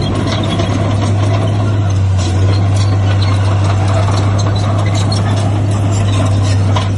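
Heavy diesel engine of earthmoving machinery running steadily with a deep, even hum, getting a little louder about two and a half seconds in.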